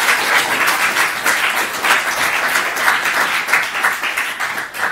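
Audience applauding, many hands clapping at once, starting to thin out near the end.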